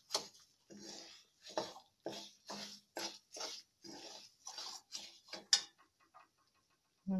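A steel spoon scrapes around a steel kadhai, stirring sugar into ghee-roasted wheat flour, at about two strokes a second. The strokes stop a little before the end.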